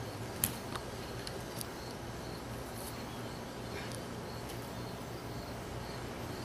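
A dried bean struck by a baseball bat: one sharp crack about half a second in, followed by a few fainter ticks. Insects chirp steadily underneath.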